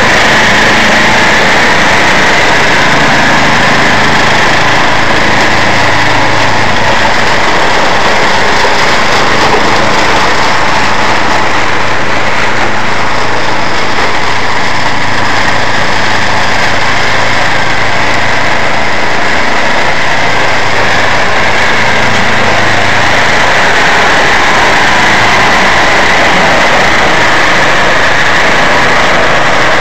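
Red two-stage snowblower's small engine running steadily while it clears snow.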